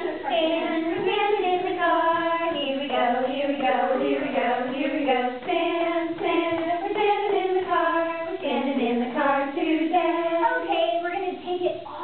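Women singing a children's song, a continuous sung melody with held notes.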